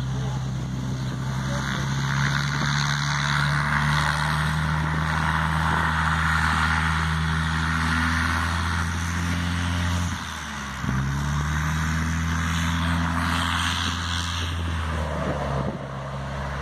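Single-engine light aircraft's piston engine and propeller running steadily as the plane taxis. About ten seconds in, the engine note drops briefly and then comes back up.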